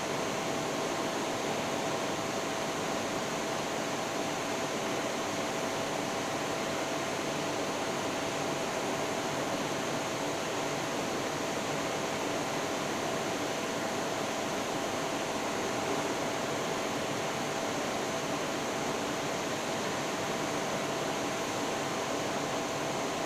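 TIG welding arc burning steadily: an even hiss with a faint steady whine, unbroken throughout.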